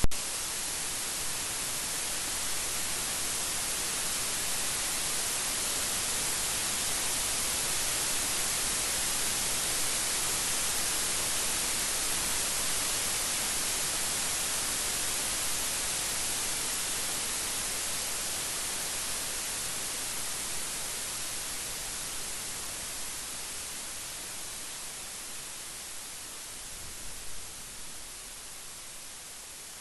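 Steady rain making an even hiss, with no thunder heard; it grows gradually quieter over the last ten seconds or so. A short sharp click comes right at the start.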